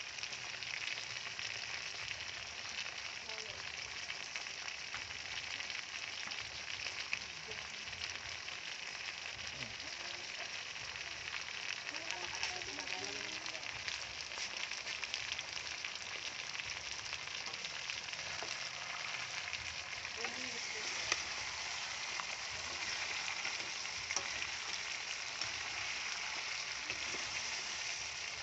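Chicken wings sizzling steadily in hot oil in a metal wok, with catsup and oyster sauce poured over them. A spatula scrapes the pan near the end.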